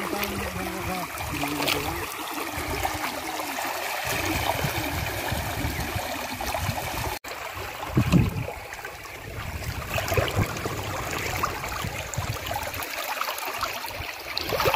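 Muddy water rushing steadily through a gap in a bamboo fish-trap fence, with splashing from people wading in it; a louder splash about eight seconds in.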